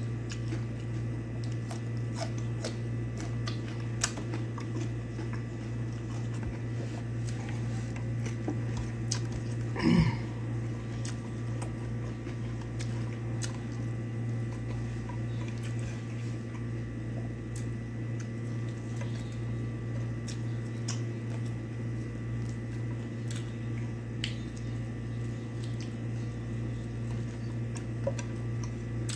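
Eating with the bare hand: chewing, smacking and soft squishing as rice and chicken are picked from a plate and fingers are licked, with scattered small clicks. A steady low hum runs underneath, and a brief louder sound comes about ten seconds in.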